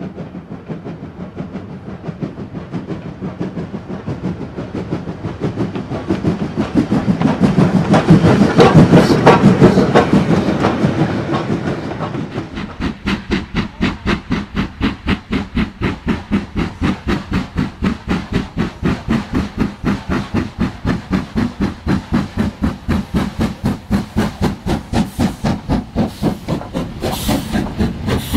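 Steam locomotive sound on a model railway: a swelling hiss of steam that peaks and fades, then a steady, fast chuffing beat of several exhausts a second.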